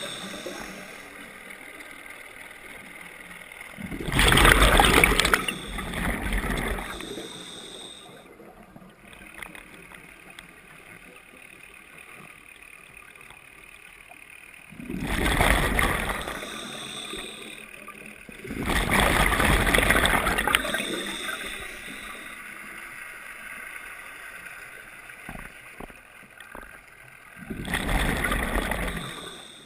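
Scuba regulator exhaust underwater: a diver's exhaled bubbles rushing and gurgling in four bursts of two to three seconds, each a breath out, with a quieter steady hiss between them.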